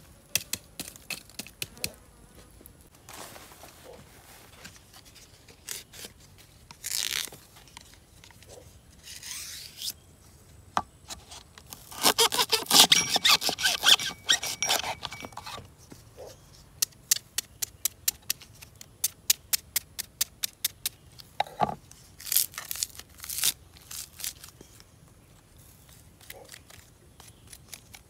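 Folding knife cutting and slicing a green stalk: runs of sharp clicks, several a second, with a louder rough stretch of cutting noise about halfway through.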